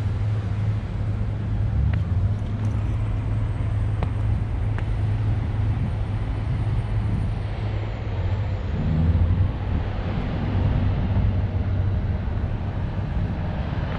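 Steady low rumble of road traffic or a running vehicle engine, with outdoor noise and a few faint clicks.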